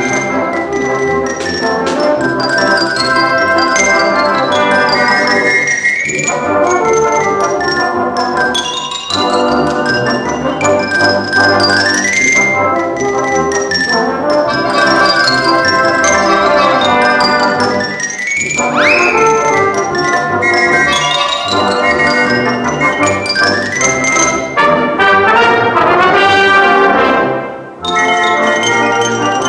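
Fast xylophone solo over brass band accompaniment, a quick, busy chase tune. Several sharp rising glides in pitch cut through the music, about six, twelve and nineteen seconds in, and the music dips briefly near the end before coming back in.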